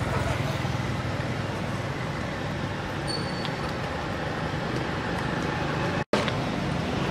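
Steady low rumble of roadside traffic noise, cutting out for an instant about six seconds in.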